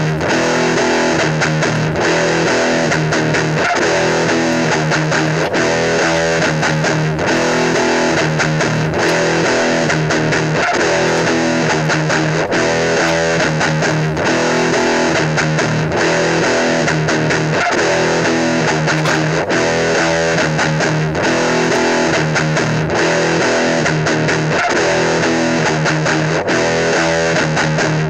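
Rock music with distorted electric guitar and bass over a steady beat.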